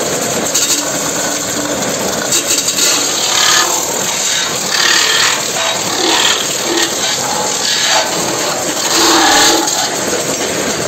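Belt-driven metal-spinning lathe running while a long lever tool is forced against a spinning sheet-metal disc, shaping it into a mortar pan: a steady grinding hiss of tool on metal, with short squeals, the strongest about nine seconds in.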